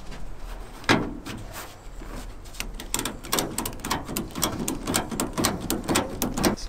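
Ratchet tie-down strap being cranked tight on a flatbed: a knock about a second in, then a long run of quick, irregular clicks.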